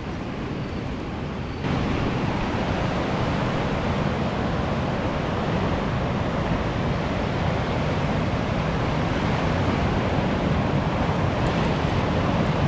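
Sea surf breaking on a beach, a steady rush of waves mixed with wind. It comes in abruptly about two seconds in, replacing a lower rumble.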